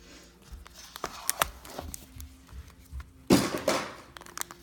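Plastic Kinder egg shell being pried apart by hand: scattered small clicks and cracks of the splitting plastic, then a brief louder crackle about three seconds in, over faint music.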